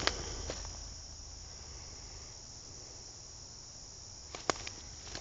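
Steady high-pitched chorus of insects calling outdoors, with a few sharp clicks at the start and a louder one about four and a half seconds in.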